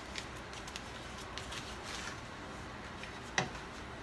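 Potatoes in cream cooking in a stainless steel skillet with a faint steady hiss. Small clicks are scattered through it, and one sharp knock comes about three and a half seconds in: a wooden spoon striking the pan.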